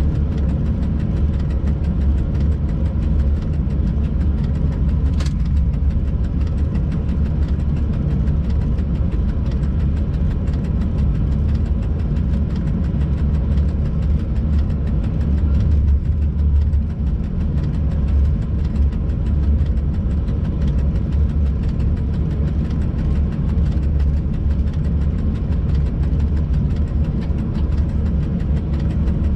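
Steady low rumble of a freight locomotive running, heard from inside its cab, with faint steady humming tones above it. A single sharp click sounds about five seconds in.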